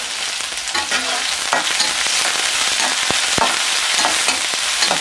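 Sliced onions and green chillies sizzling in hot oil in a metal kadai: a steady hiss, with a spatula scraping and stirring against the pan.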